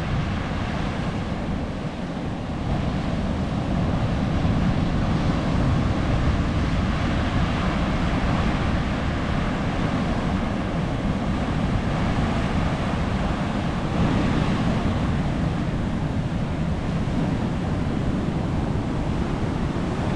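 Rough, storm-swollen sea breaking against coral rocks: a steady rush of surf, with wind on the microphone adding a low rumble.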